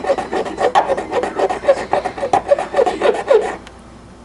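Plastic part of a 1/64 scale diecast car being filed down by hand, quick rasping back-and-forth strokes about four a second, stopping about three and a half seconds in.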